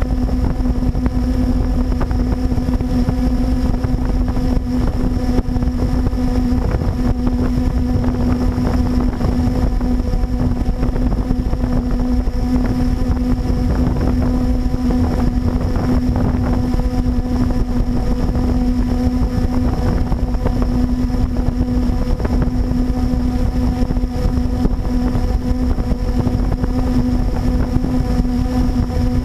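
Blade 350QX quadcopter's brushless motors and propellers humming steadily at a held pitch, heard close up from the camera mounted under the quad, with wind rumbling on the microphone.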